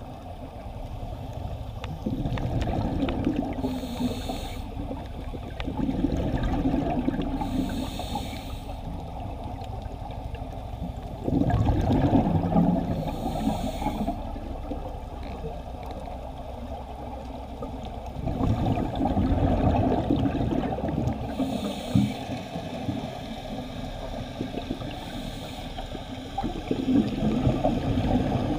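Scuba regulator breathing underwater: a short hissing inhalation, then a longer bubbling exhalation, repeating every few seconds.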